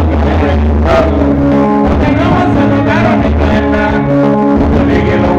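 Live band music, loud and steady: electric bass line, electric guitars and a drum kit, with singing.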